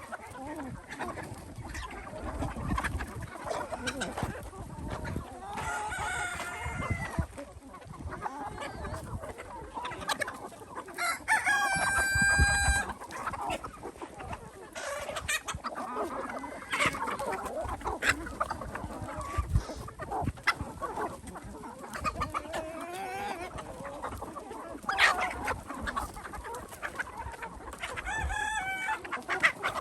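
A flock of chickens clucking, with a rooster crowing loudly about twelve seconds in.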